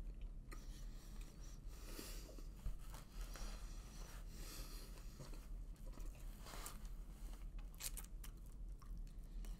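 A man chewing and crunching on pizza crust close to the microphone, with irregular crackles throughout.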